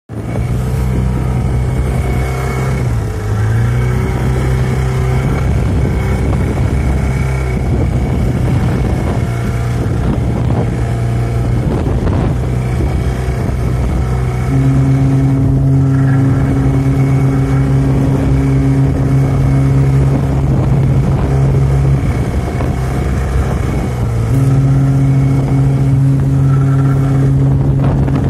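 Deep ship's horn of a large tanker sounding two long, steady, low blasts: the first starts suddenly about halfway in and holds for around seven seconds, the second follows after a short break and runs almost to the end. Underneath is the steady drone of a small fishing boat's engine.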